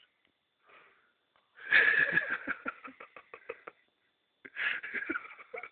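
A man snoring in his sleep: a long, rattling snore about one and a half seconds in, then a shorter snoring breath near the end.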